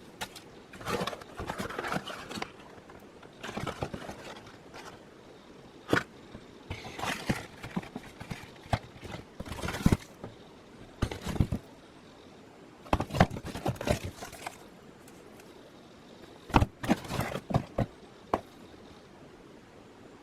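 Objects being handled: irregular clusters of knocks, clicks and scraping with short pauses between them.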